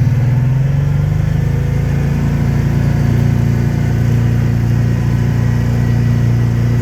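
A small engine running steadily at constant speed, its pitch settling about a second in.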